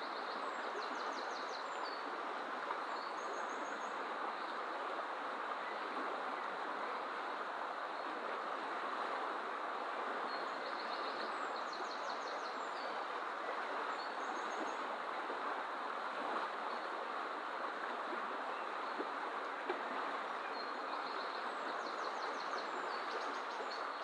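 Steady rush of a fast-flowing river running high over its banks. A small songbird sings a short, high, rapid trill three times, about ten seconds apart.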